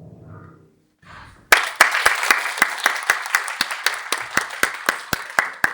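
The last chord of the piece dies away. After about a second of silence, an audience breaks into applause, with a few sharp claps standing out in a steady beat about four times a second.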